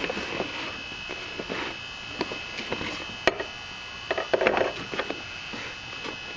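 Handling noise from a wooden-stocked Mosin-Nagant 91/30 rifle: scattered clicks, knocks and rubbing of wood and metal, with one sharp click about three seconds in and a short cluster of knocks a second later.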